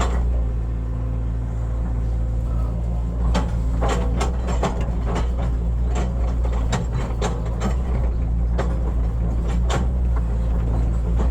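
Hitachi excavator's diesel engine running steadily, with a series of short sharp knocks and clanks over the middle of the stretch as it works.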